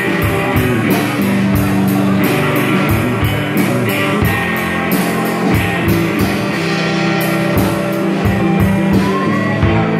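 Rock band playing an instrumental passage: electric guitar over a steady drum beat and bass, with no singing.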